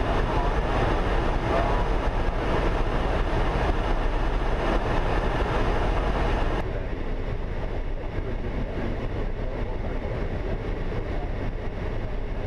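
Steady rush of airflow and engine noise on the flight deck of an Airbus A380 in flight. About six and a half seconds in, the sound turns suddenly duller and a little quieter as the high hiss drops away.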